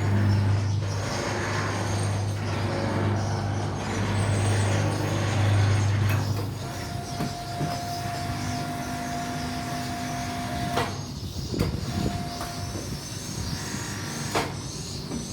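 Heavy machinery running. A steady low hum stops about six seconds in, then a steady whine holds for about four seconds, followed by a few sharp knocks.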